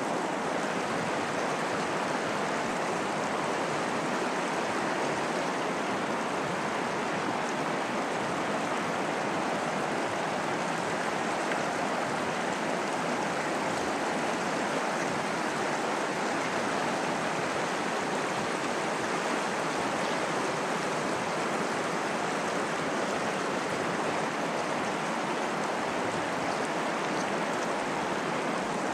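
River water rushing steadily, an even, unbroken hiss of flowing water.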